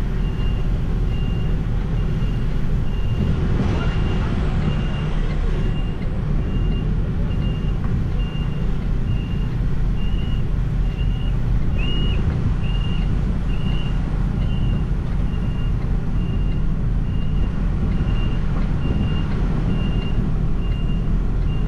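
An Iveco HGV's reversing alarm beeping as the truck backs up, a steady train of short beeps all on one high pitch, heard from inside the cab over the low rumble of the truck's diesel engine.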